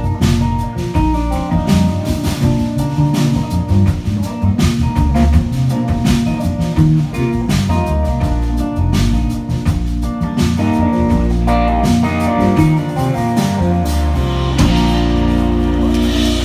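Live rock band playing: a Stratocaster-style electric guitar, bass guitar and Yamaha drum kit, the drums hitting steadily. About two seconds before the end the band settles onto a held chord with cymbals ringing.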